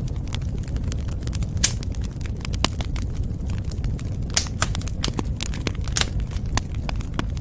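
Wood fire burning in a fireplace: a steady low rumble of flames with irregular sharp crackles and pops, a few louder snaps among them.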